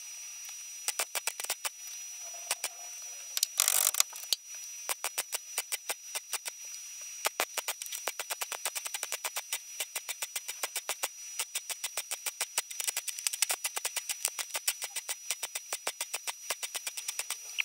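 MIG welder arc crackling in short bursts as a repair panel is stitch-welded into a car's steel A-pillar. The crackles come in quick runs throughout, with one longer continuous burst about four seconds in.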